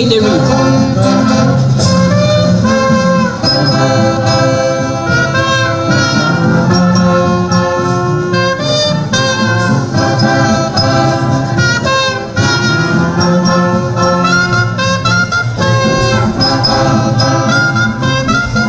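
Brass band music: trumpets and trombones playing a tune in held, changing notes.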